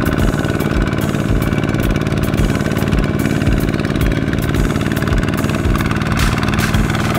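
Kubota ZT155 walking tractor's single-cylinder diesel engine running steadily with a regular low thud, pulling a loaded trailer through deep mud.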